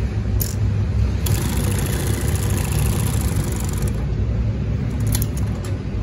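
Mitsubishi double-needle walking-foot industrial sewing machine stitching a short run, a fast even chatter from about a second in to about four seconds, over a steady low motor hum. A few light mechanical clicks come near the end.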